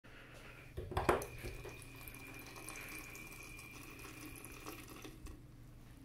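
Quiet small-restroom room tone: a steady low hum with a thin high whine that stops near five seconds, and a few soft knocks about a second in.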